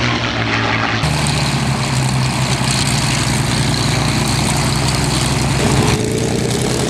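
Supermarine Spitfire Mk IX's Merlin V-12 running at low power while taxiing, a steady propeller-driven drone. The sound changes abruptly about a second in, from the two fighters flying past, and again near the end, to a P-51D Mustang's Packard Merlin taxiing.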